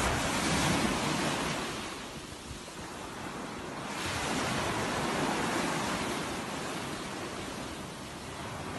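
Surf washing on the shore with wind on the microphone: a steady rushing noise that swells, ebbs and swells again.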